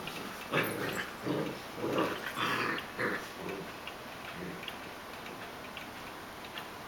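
Puppies giving short play-growls while wrestling, a quick run of about half a dozen in the first three seconds, followed by light scuffling and small clicks.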